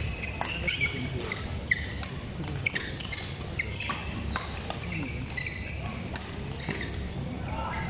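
Badminton play in a large hall: repeated sharp racket-on-shuttlecock hits and short high sneaker squeaks on the court mat, echoing, with hits from neighbouring courts mixed in.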